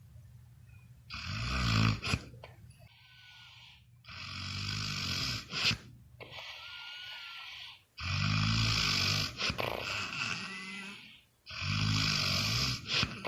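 Snoring: four loud, fluttering snores about every three and a half to four seconds, each lasting one to two seconds, with softer breaths between.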